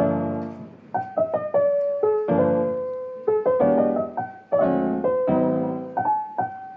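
Background music of slow piano chords and single notes, each struck and then fading.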